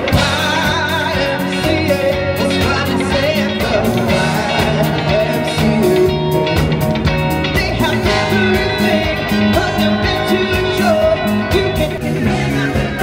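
Live rock band playing a song: a singer over drums, electric guitars, bass, keyboard, trumpet and trombone, with a steady beat.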